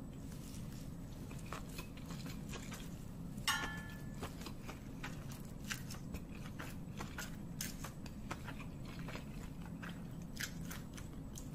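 Close-miked eating of instant noodles: a steady string of soft wet mouth clicks and smacks as forkfuls are slurped in and chewed, over a steady low background hum, with one brief pitched sound about three and a half seconds in.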